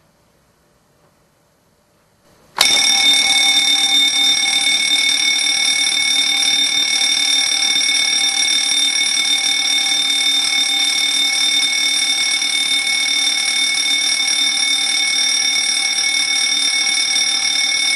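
A fire alarm bell starts ringing suddenly about two and a half seconds in and rings loud and steady from then on. It was set off by pressing the red manual call point.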